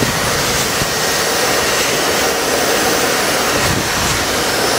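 Miele Triflex HX2 cordless stick vacuum running steadily in Eco mode, an even motor and airflow noise that the owner calls really soft and relaxed.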